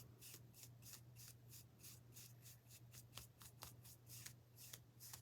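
Faint, irregular brushing strokes of a paintbrush on a small wooden piece, short scratchy swishes coming roughly twice a second.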